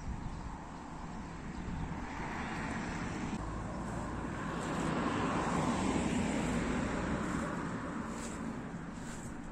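A vehicle passing by, a steady rushing noise that swells to its loudest about midway and then fades away.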